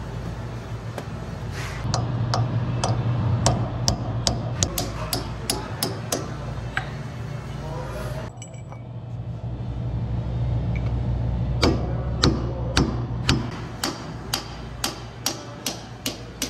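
Hammer striking a steel punch set against a forklift wheel hub, sharp ringing metal-on-metal blows about twice a second. The blows stop for a few seconds and then start again, growing lighter toward the end, over a steady low hum.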